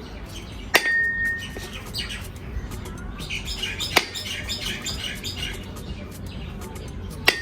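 A whole coconut being struck three times with a metal blade to crack it open: sharp cracks a few seconds apart, the first and last followed by a brief metallic ring. Birds chirp in the background.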